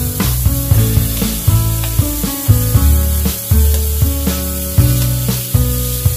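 Background music with a steady beat, over the sizzle of a porterhouse steak frying in butter and oil as it is spooned over and basted.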